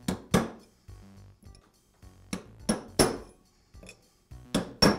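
A steel hammer striking a drift punch to tap a ball bearing home into a drill press quill. The strikes are sharp and ring out metallically, coming in quick groups of two or three, about seven blows in all.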